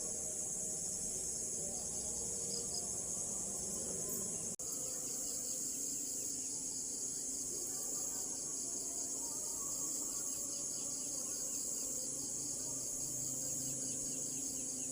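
Crickets chirping in a steady, high-pitched, fast-pulsing chorus, broken for an instant about four and a half seconds in.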